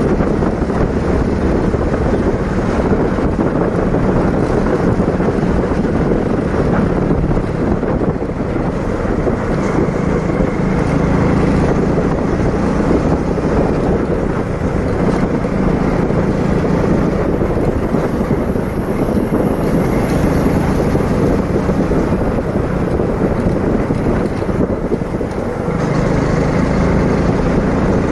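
Motorcycle engine running steadily on the move, with wind rushing over the microphone. The engine note eases off briefly near the end and then picks up again.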